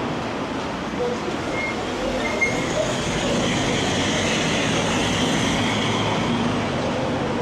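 Tram rolling past on street rails, a high hiss and screech from the wheels building up about three seconds in.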